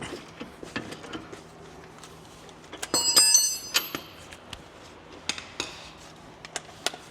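Hand tools working on a suspension bolt: light metal clicks and knocks, with a bright, ringing metallic clank about three seconds in.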